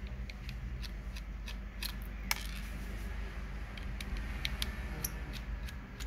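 Irregular small metallic clicks and ticks of a Phillips screwdriver working the screws out of a 2.5-inch laptop hard drive's metal mounting caddy. The sharpest click comes a little past two seconds in, over a steady low hum.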